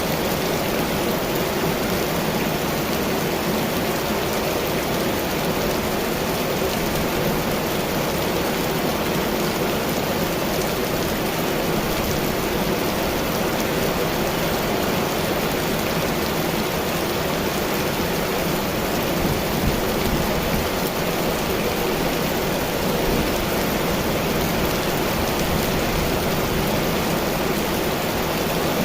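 Heavy rain pouring down in a storm, a dense, even hiss of water that holds steady without letup.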